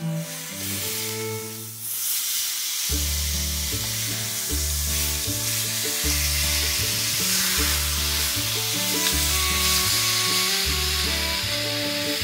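Chicken breasts sizzling in a very hot, oiled cast iron skillet; the sizzle swells about two seconds in and holds steady. Background music with a repeating bass line joins about three seconds in.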